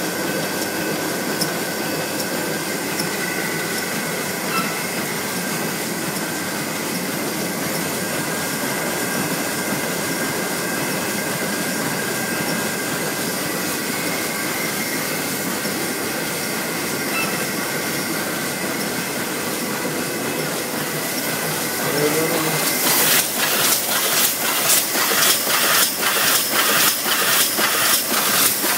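Meccanotecnica Aster 2000 book-sewing machine running: a steady mechanical hum with faint whine tones. About three-quarters of the way in, a rhythmic clatter starts, about two to three strokes a second, as the sewing cycle runs.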